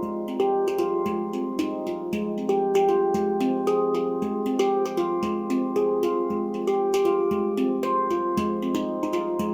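Handpan tuned to an F low Pygmy scale being played by hand: a quick, flowing run of struck notes, each ringing on and overlapping the next.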